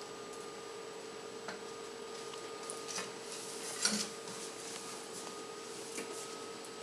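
Quiet room with a steady faint hum and a few light clicks and taps, the loudest a soft knock about four seconds in.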